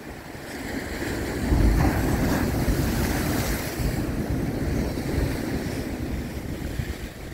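Sea surf breaking and washing against the rocks of a stone breakwater, swelling about a second and a half in, with a spray hiss soon after. Wind rumbles on the microphone throughout.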